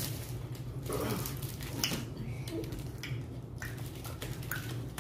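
Candy wrappers being unwrapped and handled at a table: scattered soft rustles and small clicks over a steady low hum.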